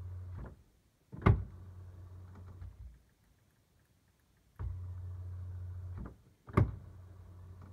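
A Dbox unit making a strange noise while booting: a steady low hum cuts out, a sharp click follows about a second in, then a quieter hum that stops. The hum comes back and the same cut-out and click repeat about five seconds later, a repeating cycle.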